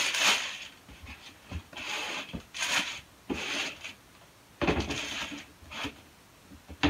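Tissue paper rustling and crinkling in about six short rushes as packing paper is pulled out of a sneaker and handled over its box.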